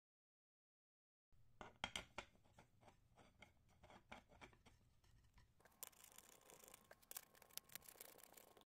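Faint clicking and scraping as wooden table legs are screwed by hand into the metal mounting plates under a small side table: sharp clicks at first, then from about halfway a denser, steadier scraping.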